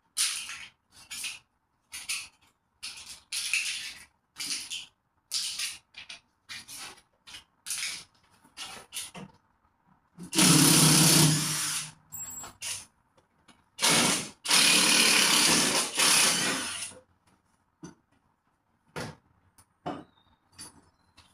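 A power tool is run in many short bursts, about one a second, for the first ten seconds. It then runs loud in three longer stretches of one to three seconds each.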